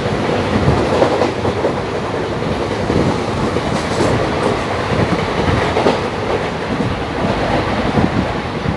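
Running noise of an Indian Railways passenger coach, heard from inside: a steady rumble with a few faint knocks.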